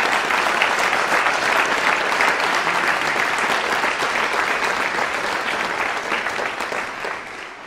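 Audience applauding in dense, steady clapping that dies away near the end.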